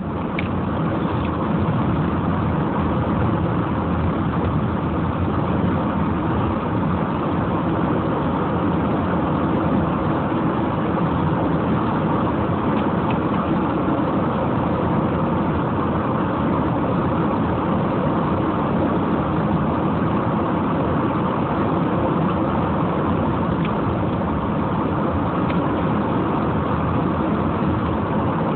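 Steady engine and tyre noise of a car driving along a paved road at an even speed.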